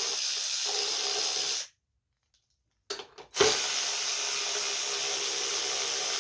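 Air ratchet on a 3/8 socket running in two long bursts, a steady hiss of exhaust air, with a short pause and a few small clicks between them as the engine shroud bolts are backed out.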